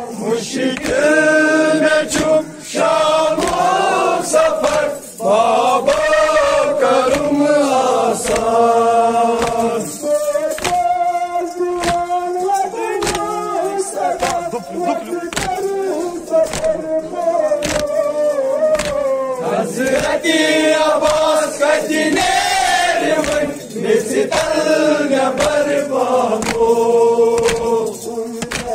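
Group of voices singing together in long, wavering held notes, with sharp beats recurring at fairly regular intervals.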